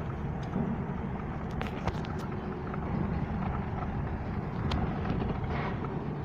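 Steady low engine rumble of vehicles in a ferry's car deck, with a few faint clicks and knocks.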